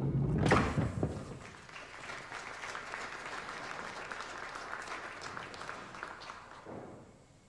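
Five-pin bowling ball rolling down the lane and crashing into the pins about half a second in, followed by audience applause for about five seconds that dies away near the end.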